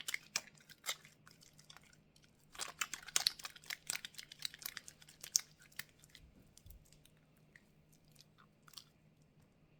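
Wet hands rubbing together through a thick soap lather, a crackle of many small squishy clicks that is densest from about two and a half to five and a half seconds in.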